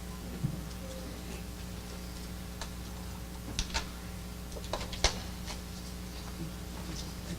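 Scattered small clicks and taps over a steady low electrical hum, the sharpest a pair about three and a half seconds in and a single louder one about five seconds in.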